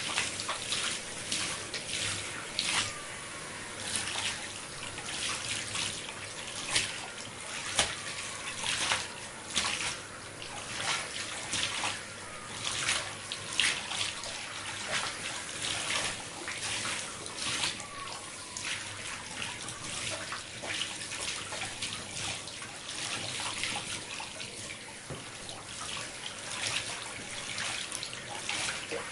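Shower water running and splashing while hair is washed, with irregular wet splashes and squelches from hands working through the hair. Now and then there is a short falling squeak.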